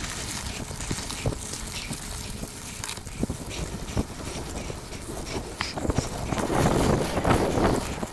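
Mountain bike rolling down a dirt singletrack: tyres crunching over the ground, with frequent clicks and rattles from the bike. The noise grows louder and rougher for a couple of seconds near the end.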